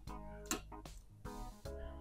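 Quiet background music with plucked, guitar-like notes, broken by a few sharp clicks, the loudest about half a second in.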